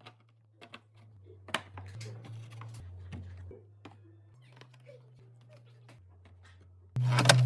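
Scattered light clicks and taps of small items and packaging being handled during a snack restock. Near the end, a much louder sound cuts in suddenly.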